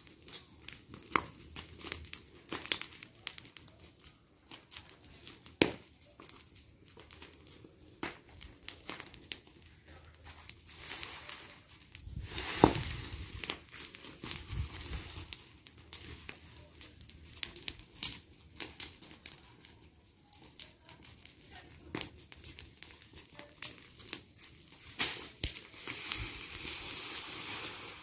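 A small fire of dry leaves, weeds and corn stalks crackling in sharp, irregular pops, mixed with the rustle and crunch of dry debris raked onto the pile. There is one louder knock with a low rumble about halfway through.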